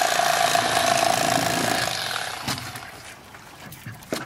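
Electric fillet knife running as it cuts through a striped bass's ribs, a steady motor buzz that fades out about two seconds in.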